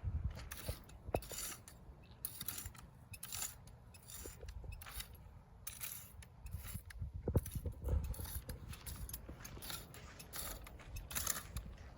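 Yard work on dry ground: repeated scratchy scraping and rustling strokes, irregular, about one or two a second, over a low rumble.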